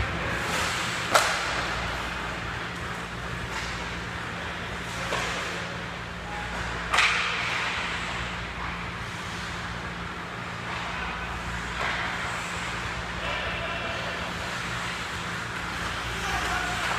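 Ice hockey play on a rink: skate blades scraping the ice and sharp clacks of sticks and puck, the loudest about a second in and about seven seconds in, over a steady low hum.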